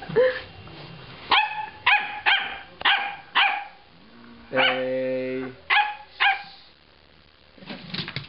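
Dog barking: a run of about six short, sharp barks, then one longer held low call about halfway through, then two more barks.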